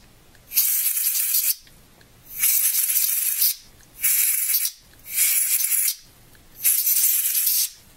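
Can of compressed air fired through its red extension straw in four short blasts of hiss, each about a second long, blowing IPA and loosened crud out of keyboard switch contacts.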